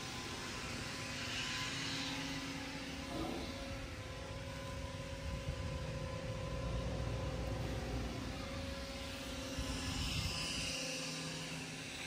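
Motorcycle engine running steadily while riding, with wind rushing over the microphone.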